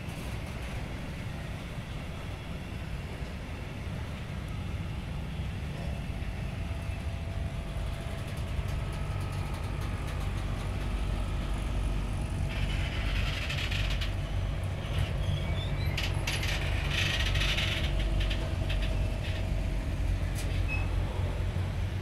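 Slow intermodal freight train of pocket wagons carrying lorry trailers rolling past, a steady low rumble of wheels on rails that grows louder. About halfway through, bursts of high hissing screech come in: the train's brakes as it slows toward a stop.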